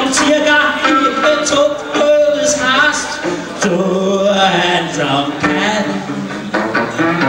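A man singing a song while strumming a guitar, with regular strokes of the strings under the vocal line.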